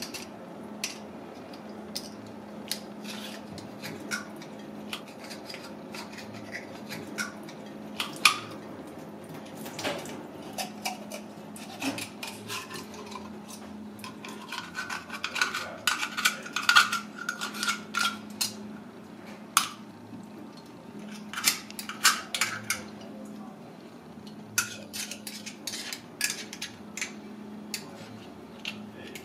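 Steel knife clicking and scraping against a giant clam's ribbed shell as the clam is shucked, in scattered strokes that come thicker in the middle of the stretch. A steady low hum runs underneath.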